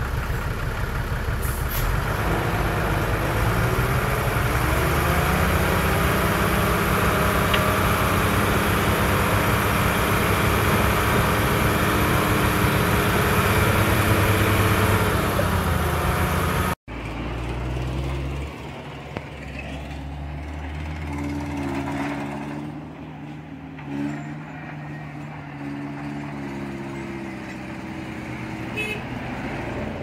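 Heavy diesel engine of earthmoving machinery working hard. Its pitch rises a couple of seconds in, holds with a loud hiss over it, and eases off just before an abrupt cut about halfway through. After the cut a quieter engine runs at a lower, steady speed.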